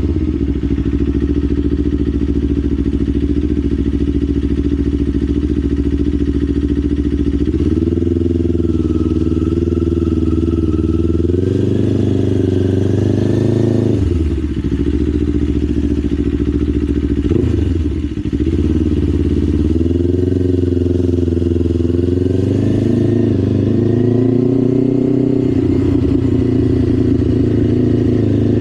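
Kawasaki Ninja 500's parallel-twin engine running while the motorcycle is ridden, its pitch rising a few times with throttle and dipping sharply then climbing back twice around the middle.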